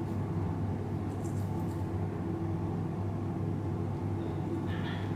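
A steady low machine hum, even in level throughout, with a faint brief scratch of an interdental brush on brace brackets about a second in.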